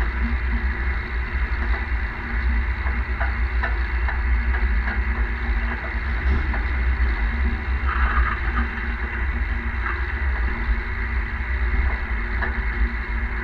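Tractor engine running steadily while towing a trailed field sprayer, with a heavy low rumble and scattered small rattles.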